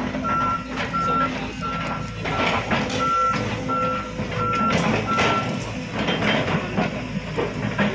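Backup alarm beeping at an even pace, about one beep every 0.7 seconds, stopping about five and a half seconds in. Underneath, a Volvo crawler excavator's diesel engine is running, with scattered clanks and rattles.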